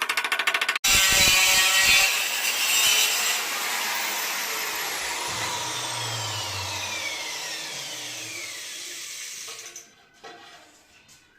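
Electric power tool, of the kind a tile fitter uses for cutting, starts abruptly after a second of rapid ticking. It runs loudly, then fades away over several seconds with a falling whine as it winds down.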